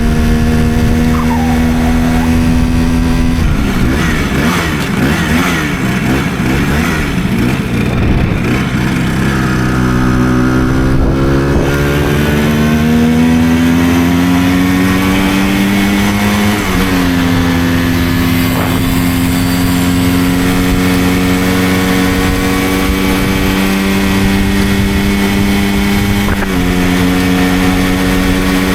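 Simson moped's small single-cylinder two-stroke engine under way. The note turns rough and unsteady a few seconds in, then climbs as the moped accelerates, shifts abruptly at a gear change about halfway, and holds steady with a small step up near the end.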